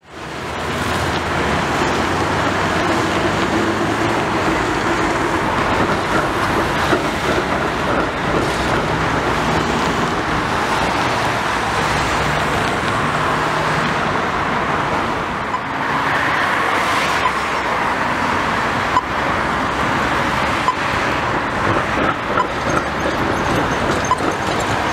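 Steady road traffic: cars passing through a busy intersection, with a few short clicks and rattles scattered through it.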